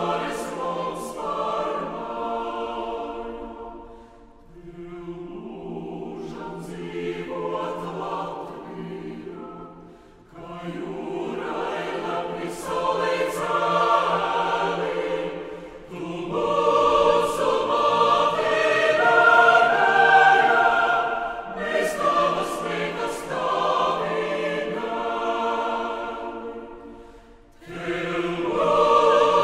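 Mixed choir of men's and women's voices singing a Latvian choral song, phrase by phrase, with a few short breaks between phrases.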